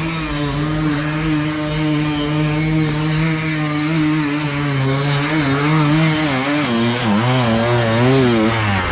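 Dirt bike engine held at high revs, steady at first, then wavering up and down in pitch through the last few seconds as the throttle is worked.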